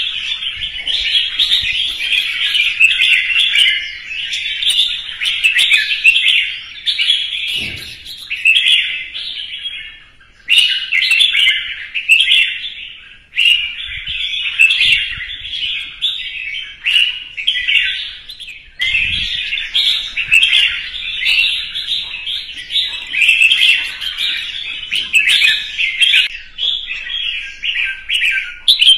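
Red-whiskered bulbul giving its loud competition song: rapid, near-continuous runs of warbled whistled phrases, broken by brief pauses about ten, thirteen and eighteen seconds in. Two soft low thumps come under the song, once about a third of the way in and again after the last pause.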